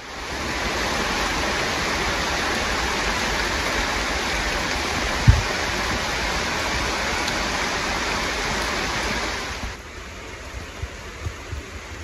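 Heavy rain falling on the rainforest foliage, a steady hiss that drops to a quieter level about ten seconds in. A single low thump about five seconds in.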